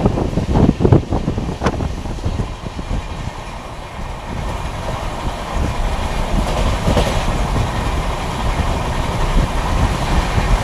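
Indian Railways express train running along the track, heard from on board: wheels rumbling and clattering over the rails. A few sharp knocks come in the first two seconds, then it settles into a steady rumble.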